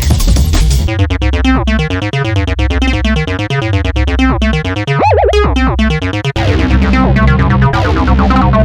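Background electronic music with synthesizer and keyboard notes over a steady bass line; a brief dip around six seconds in.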